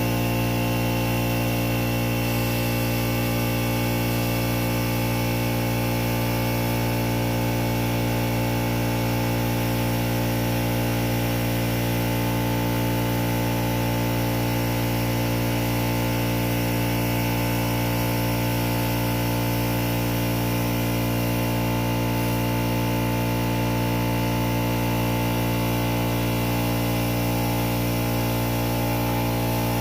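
Air compressor running steadily while inflating a tire, with a constant motor drone and no change in pitch.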